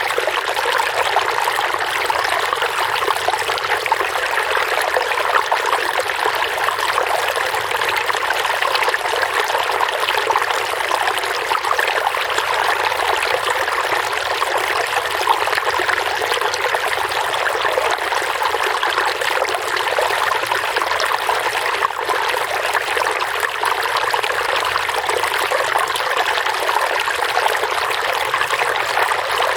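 Running water trickling and splashing steadily, a continuous babble of a small stream or outflow with no pauses.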